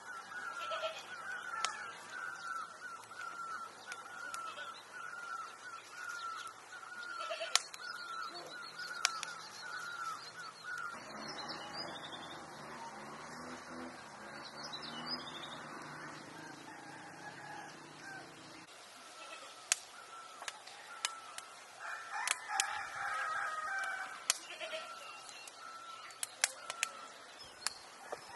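Roosters crowing and clucking, with a long crowing call in the middle. A small bird chirps over and over in the first part, and a knife clicks and taps against a wooden cutting board from time to time.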